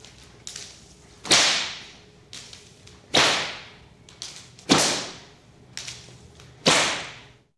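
Whip cracking four times, roughly every one and a half to two seconds: each sharp crack is preceded by a fainter swish of the lash and dies away quickly.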